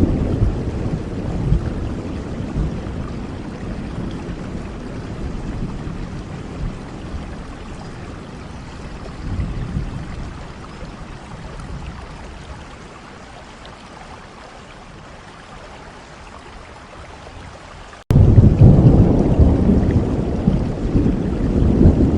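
Steady rain with low rolling thunder that fades away over most of the stretch, swelling briefly midway. About eighteen seconds in, a loud new rumble of thunder starts abruptly, over heavier rain.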